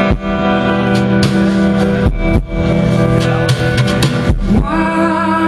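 A live band playing: sustained guitar chords over a drum kit, with sharp drum hits every second or two.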